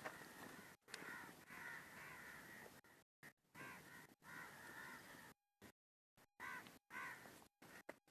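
Faint animal calls repeated several times, each a wavering cry, the longest lasting about two seconds.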